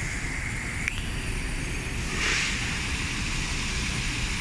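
Steady factory-floor machinery noise in a machine assembly plant: a low rumble with a faint steady whine, a single click about a second in and a short hiss about two seconds in.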